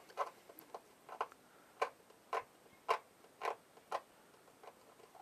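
Flat tip of a voltage-tester screwdriver scraping a solder pad on a TV's LED backlight strip, cleaning it ready for soldering: a series of short scrapes, about two a second.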